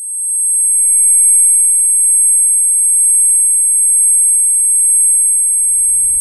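Loud, steady, high-pitched electronic sine tones: two piercing high pitches held together over a few fainter, lower steady tones, swelling in at the start. A low rumble builds underneath near the end.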